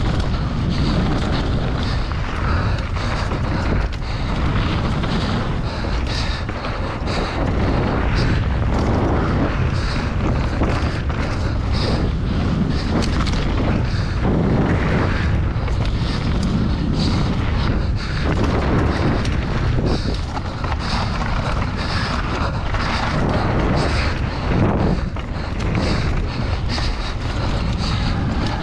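Wind buffeting the camera microphone over a mountain bike descending a dirt trail at speed: tyres rumbling on the ground and the bike clattering and rattling, with frequent sharp knocks from bumps and roots.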